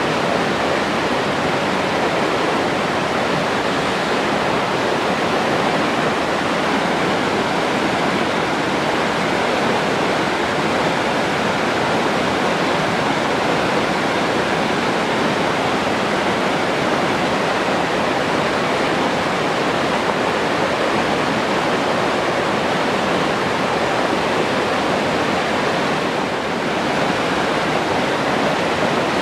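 Forest stream rushing steadily over rocks, an even, unbroken sound of flowing water.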